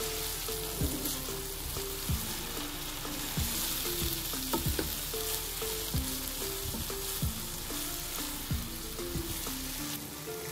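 Minced beef keema frying and sizzling in a wok as it is stirred with a slotted spatula to work in the spices. Faint background music with a steady beat plays underneath.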